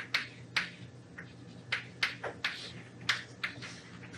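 Chalk tapping and scratching on a chalkboard as numbers are written: short sharp clicks, irregular, about three a second, over a low steady hum.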